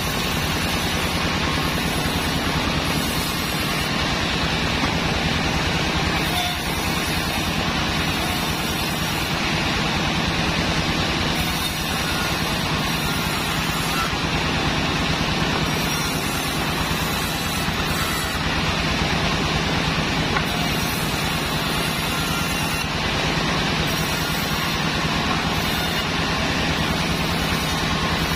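Large band sawmill running steadily, its blade cutting lengthwise through a Sonokeling (Indian rosewood) log as the log is pushed through, over the constant drone of the drive. The high hiss of the cut comes and goes every second or two.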